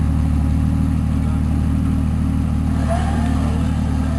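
Rock crawler's engine running steadily at low revs as the rig creeps over rocks.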